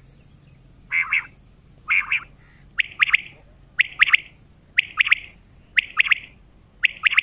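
Quail calling: a short, clipped, buzzy note repeated about once a second, seven times.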